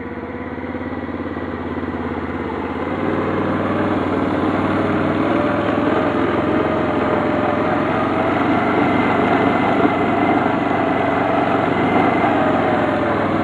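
Kazuma ATV engine running as it rides across a lawn, getting louder over the first few seconds as it picks up speed, then holding a steady pace.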